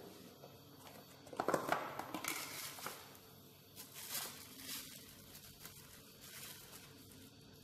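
Faint rustling and crinkling of plastic packaging, with a few light clicks and knocks as small things are picked up and handled.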